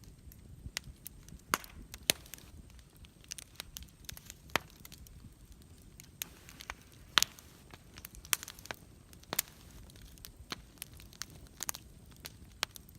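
Wood campfire crackling: irregular sharp snaps and pops, a few much louder than the rest, over a low steady rush of the flames.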